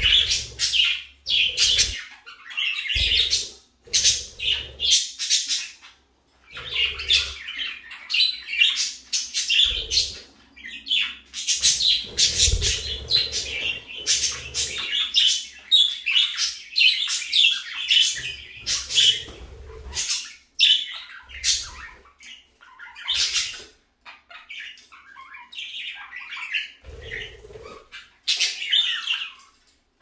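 Pet budgerigars chirping and warbling in quick runs of short, high calls, broken by a few brief pauses.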